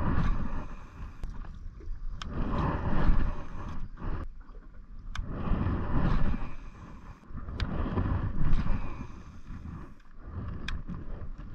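Wind buffeting the microphone in gusts that swell and fade every two to three seconds, with water lapping against a small boat's hull and a few sharp clicks.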